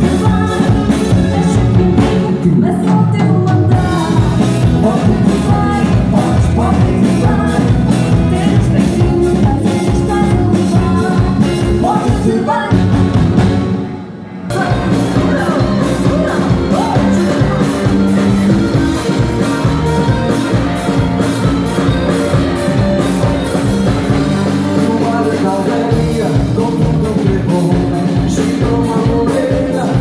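Live band playing through a PA system: drums, keyboard and guitar under a sung lead vocal. There is a short break in the music about halfway through, and then it carries on.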